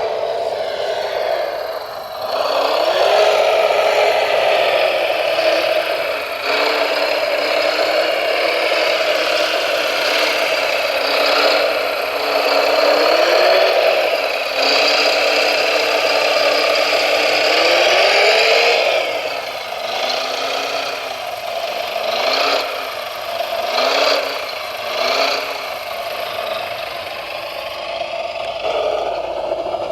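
Electric drive motors and hydraulic pump of a radio-controlled model construction machine whining, their pitch rising and falling as the operator speeds them up and slows them down, with rattling from the machine working. Near the end, several short swells in pitch come in quick succession.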